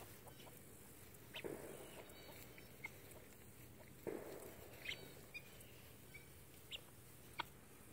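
Faint pecking and rustling in the grass from a helmeted guineafowl foraging close by. There are two soft rustles and several short, sharp clicks.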